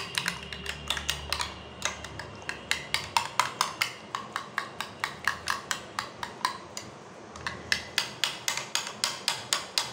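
Metal fork beating yogurt in a glass bowl, the fork clicking against the glass in a quick, even rhythm of about four strokes a second, with a short pause about seven seconds in.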